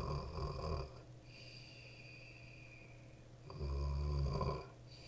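A woman imitating snoring: two mock snores, each about a second long, one right at the start and one about three and a half seconds in.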